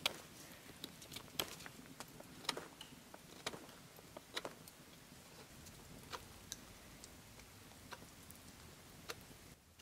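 Knife carving a linden-wood spoon blank: short, sharp cuts and scrapes against the soft wood at an irregular pace, about one a second.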